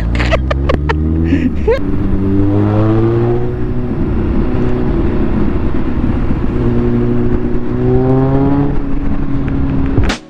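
Motorcycle engine heard on board while riding, pulling through the gears with its note rising, easing into a steady rush of wind and road noise, then rising again as it accelerates. The sound cuts off suddenly near the end.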